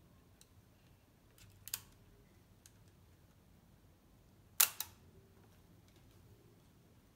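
Metal clicks from a vintage Werkstätten Dresden folding bellows camera being handled: a single click about a second and a half in, then a louder double click about halfway through.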